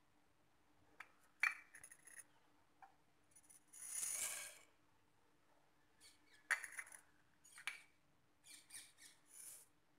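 Whole spices (coriander seeds, cumin and black peppercorns) poured from a small bowl onto a dry flat pan, rattling and pattering on the metal, with a longer patter about four seconds in and several sharp clicks. A faint steady hum runs beneath.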